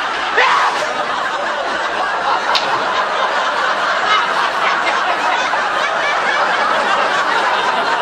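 A studio audience laughing in one long, steady wave.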